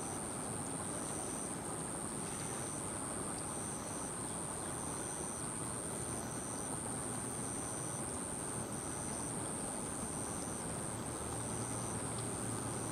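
Steady outdoor background noise with insects calling: a continuous high, thin buzz, plus a shorter high note that repeats evenly about every second and a quarter.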